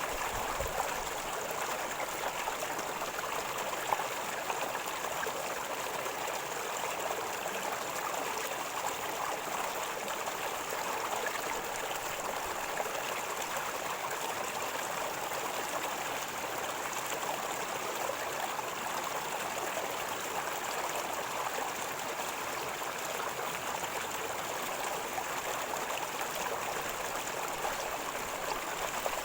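River water flowing and gurgling steadily over stones.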